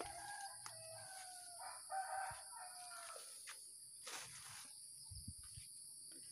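A rooster crowing once, faint: one long drawn-out crow of about three seconds that drops away at the end, over a steady high-pitched insect chorus.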